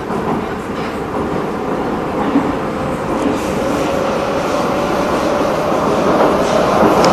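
Prague metro train heard from inside the car as it pulls away from a station and picks up speed into the tunnel: the running noise grows steadily louder while a motor whine slowly rises in pitch. A few light knocks from the wheels on the rails show through the rumble.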